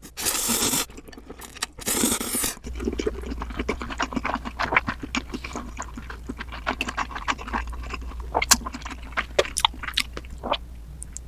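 Two loud airy rushes of breath in the first few seconds, then close-up chewing of noodles: a dense run of wet smacks and clicks from the mouth.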